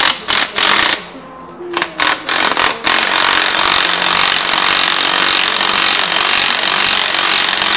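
A power tool running in several short on-off bursts, then running steadily without a break from about three seconds in.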